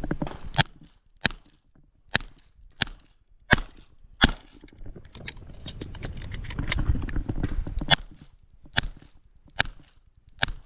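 Gunshots from a Smith & Wesson 929 revolver firing .38 Short Colt loads during a USPSA stage. There are six sharp shots at a steady pace, then a pause of about three and a half seconds filled with low rumbling noise, then four more shots.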